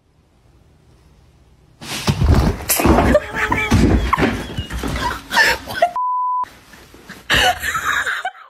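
Loud jumble of voices and knocks, cut about six seconds in by a half-second steady censor bleep.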